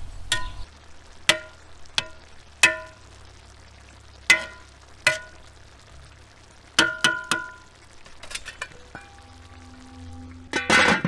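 Perforated metal skimmer striking a cast-iron kazan as steamed rice pilaf is gathered into a mound, a series of sharp taps that each ring briefly. Just before the end, a louder clatter as the kazan's metal lid goes on.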